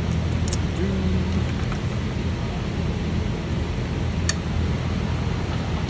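Steady low rumble of workshop background noise, with two sharp little clicks, about half a second and four seconds in, from parts being fitted by hand on a diesel engine's fuel rail.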